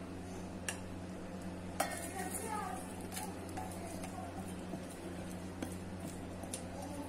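A spatula scraping thick mango pulp out of a glass bowl into a stainless steel mixer jar: soft scrapes and wet plops, with a few light clicks and knocks, the sharpest about two seconds in, over a steady low hum.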